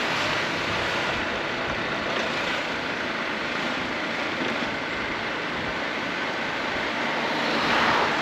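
Honda ADV 350 scooter being ridden: steady wind rush and road noise over the engine, swelling a little louder near the end.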